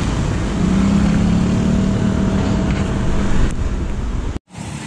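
Road traffic with cars driving past close by, one engine humming louder for a few seconds as it passes. The sound cuts off abruptly about four and a half seconds in.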